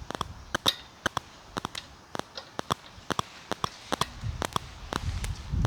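Irregular sharp clicks and taps, two to four a second, from hands and tools working the mower cable's end fittings and squeeze clips loose, with a low rumble of handling noise coming in about four seconds in.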